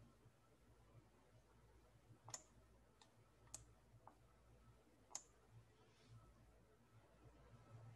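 Near silence with a handful of faint, short computer mouse clicks, scattered unevenly over several seconds.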